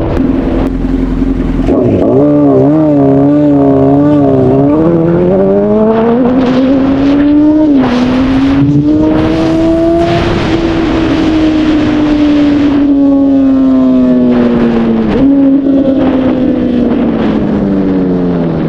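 Honda CBR1000RR inline-four engine under riding: the revs climb hard, drop sharply at a gear change about eight seconds in and climb again, then ease off slowly, with a quick jump in revs about fifteen seconds in as it keeps slowing. Wind rushes over the microphone at speed while the revs are high.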